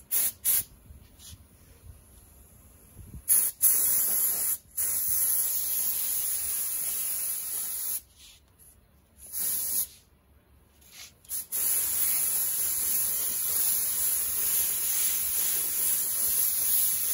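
Compressor-fed paint spray gun hissing while spraying basecoat: a couple of short blips, then a long pass of about four seconds, two more short bursts, and a final long steady pass of about five seconds.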